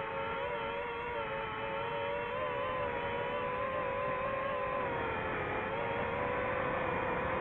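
FPV quadcopter's electric motors and propellers whining steadily. The pitch wavers, dips about five seconds in and climbs again near the end.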